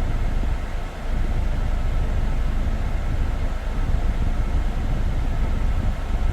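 Kia Grand Carnival's engine running at idle with the air conditioning switched on, a steady low rumble while the freshly recharged system runs.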